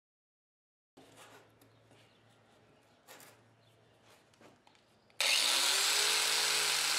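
Electric angle grinder fitted with a wire cup brush, switched on about five seconds in: its motor whines up in pitch and then runs steadily, loud, as it wire-brushes a lawn tractor's rusty starter motor. Before that there are only faint clicks and handling noises.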